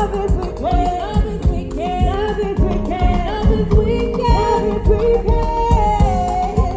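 Reggae band music with a singer: a melodic vocal line over a steady drum beat and bass.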